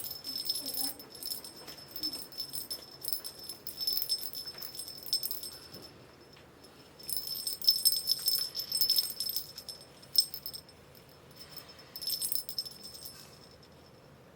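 Small metal bell jingling in quick shaken bursts, with short pauses between them, and a single sharp click partway through.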